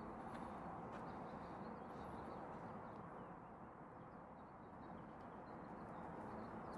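Quiet outdoor ambience: a steady low background hiss with a few faint, scattered bird chirps.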